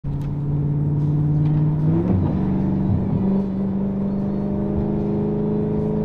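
Audi RS6's twin-turbo V8 with a straight-piped Milltek exhaust, heard from inside the cabin on the move. Its drone climbs in pitch over the first two seconds as the car accelerates, then settles to a steady pitch.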